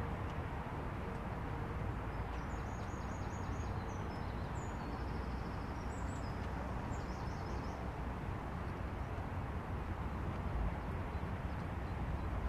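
A small songbird sings several short, high trilled phrases of rapidly repeated notes from about two to seven seconds in. Underneath runs a steady low rush of outdoor background noise.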